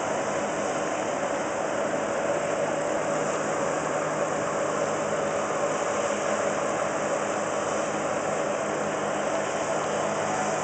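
New Holland CS6050 combine harvester running at harvesting load, a steady, unchanging engine and machinery drone.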